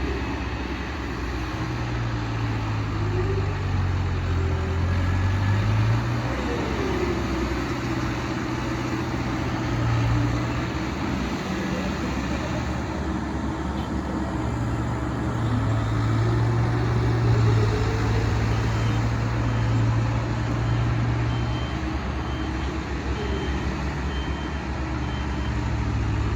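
Vibratory road roller running with a steady low drone that swells and eases, vibrating to compact freshly laid asphalt. A reversing beeper sounds repeatedly in the last several seconds.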